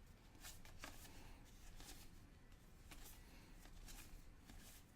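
Faint soft flicks and slides of trading cards being handled and flipped through, several light strokes over a low room hum.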